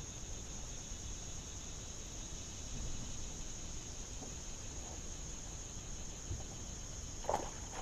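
Insect chorus from the riverbank trees: a steady, high-pitched buzz that does not change, over a faint low rumble. A brief knock comes near the end.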